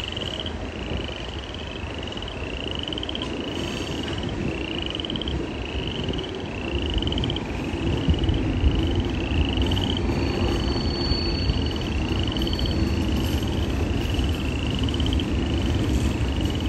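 Freight cars rolling past with a low rumble that grows louder about seven seconds in, with a few sharp clanks. Frogs call over it, short rising trills one after another.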